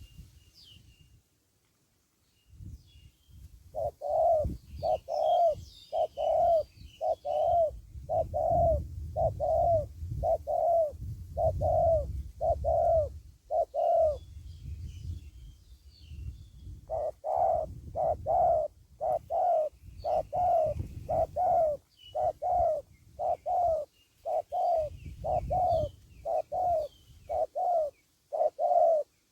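Spotted dove cooing: runs of short low coos, evenly spaced at almost two a second, broken by a pause of a few seconds in the middle. A low rumble runs underneath, and faint high chirps of small birds come and go.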